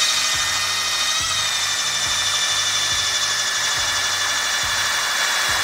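ION battery-powered electric ice auger drilling through lake ice, its motor running under load with a steady high whine.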